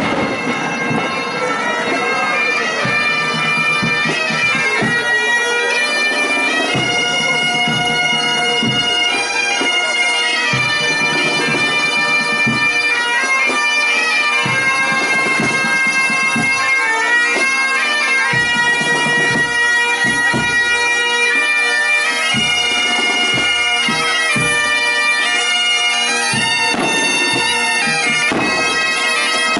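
A band of gaitas (Galician bagpipes) playing a marching tune in unison over a steady drone, with bass drum beats underneath.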